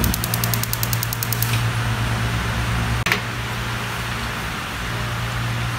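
Gas stove burner being lit: the push-and-turn igniter ticks rapidly for about a second and a half, over a steady low hum. A single click follows about three seconds in.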